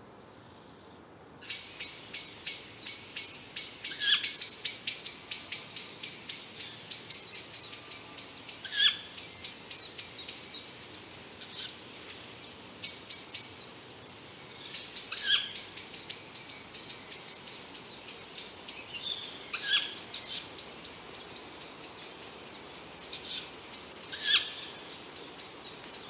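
Bird calls: a high, rapid pulsing trill that starts about a second and a half in and keeps going, with five louder, short harsh calls spaced about four to five seconds apart.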